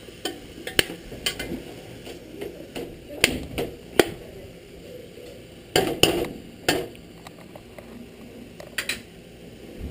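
Metal spoon stirring beef chunks in an aluminum pressure cooker pot, scraping and knocking against the pot's side and rim in irregular clinks, with a few louder knocks about four and six seconds in.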